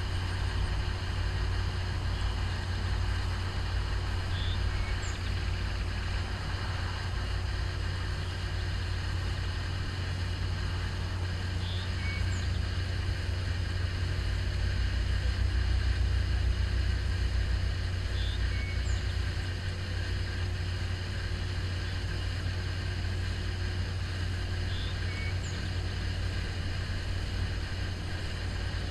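Distant towboat diesel engines running, a steady low rumble that swells a little mid-way as the boat eases its barges into the lock chamber. A faint short high chirp repeats about every six or seven seconds.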